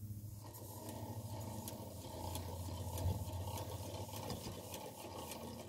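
The winding gear of a 1:15 model Watt whim engine running as it lowers the bucket over the headframe pulley: a steady mechanical running sound with faint rapid clicking.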